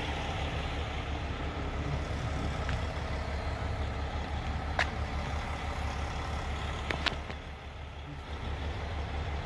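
Steady low rumble of heavy trucks running on the lot, with two sharp clicks about five and seven seconds in.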